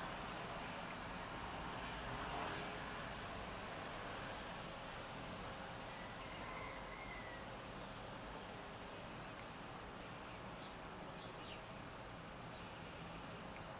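Steady outdoor background noise with a small bird repeating a short high call about once a second, joined by a few other chirps later on.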